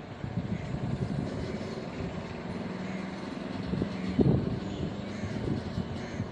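Train with tanker wagons approaching from a distance: a steady low hum from its locomotive over uneven low rumbling, with a brief bump about four seconds in.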